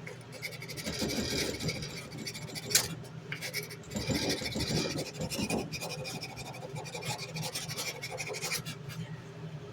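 Wet sandpaper rubbed by hand along a steel knife blade in repeated strokes, a rasping scratch that swells in two stretches, with one sharp click about three seconds in.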